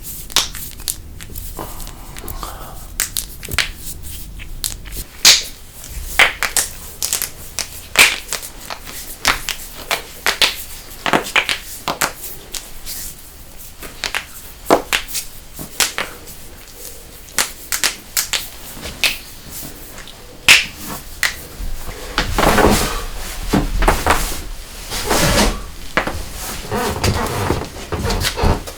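A person's joints being cracked: a long, irregular series of sharp pops and clicks, some of them loud, with a longer noisy stretch near the end.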